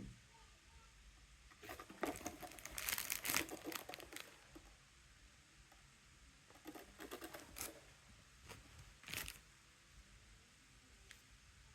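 Handling noise: several short bursts of crinkling and rustling, the longest and loudest about two to four seconds in, with more around seven and nine seconds.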